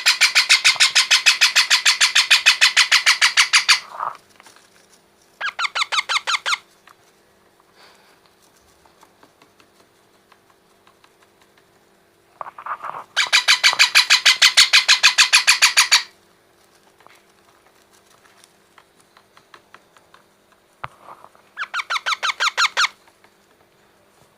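Baby parrots calling in four bursts of fast, rapidly pulsing, rasping calls. Two of the bursts are long, about four seconds each, and there are short quiet gaps between them.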